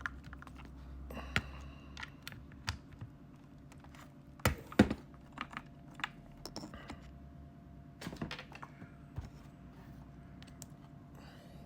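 Irregular clicks and knocks of small hard objects being handled, with one louder knock a little under five seconds in.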